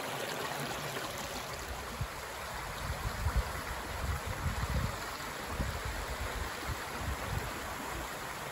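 Steady rushing noise of flowing water, like a stream, with uneven low rumbles from about three to seven seconds in.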